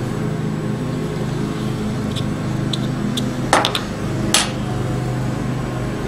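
A few small clicks, then several sharp knocks of a small tube of Goop adhesive being handled and set down on a wooden ledge, over a steady low hum.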